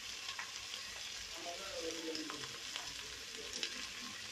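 Spice paste and oil sizzling steadily in a pan as it is fried down (bhuna) with turmeric powder just added, with a few light clicks of the stirring spoon.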